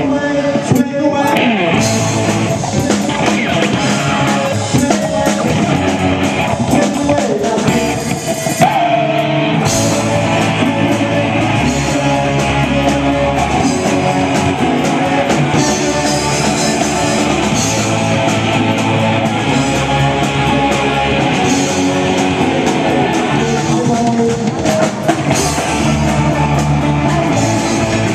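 Rock band playing live: distorted electric guitar, bass and drum kit, with some singing.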